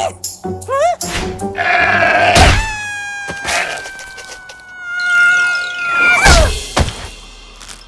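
Cartoon soundtrack of music and comic sound effects: short notes and quick rising pitch slides, then a long held tone that slowly falls in pitch for about three seconds, ending in a sharp crash about six seconds in.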